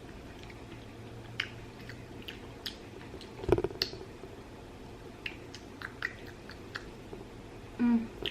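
A person chewing a mouthful of black bean instant noodles, with small wet mouth clicks and smacks and one louder thump about three and a half seconds in. A short hum near the end.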